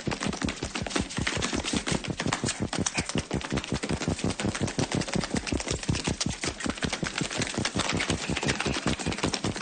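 Rapid, even clicking clatter, about six clicks a second, held steady throughout.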